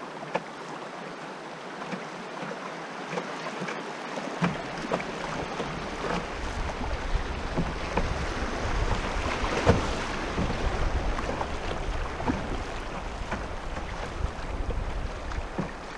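Rushing water of a shallow riffle streaming past a canoe, with scattered small knocks and taps on the hull. Wind rumble on the microphone comes in after about four seconds.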